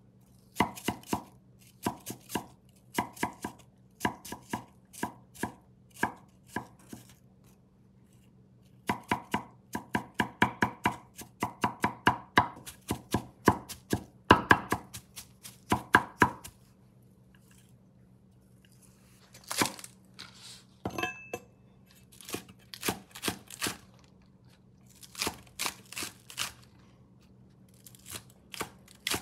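Cleaver chopping on a wooden cutting board, mincing water chestnuts: fast runs of sharp knocks, several a second, broken by pauses of a second or more. Near the end it is chopping green onions.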